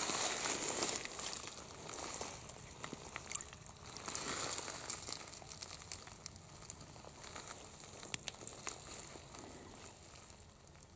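Gravel and small stones crunching and clicking as they are disturbed, loudest in the first second, with a sharp click about three seconds in and another crunch about four seconds in, then fading to faint scattered clicks.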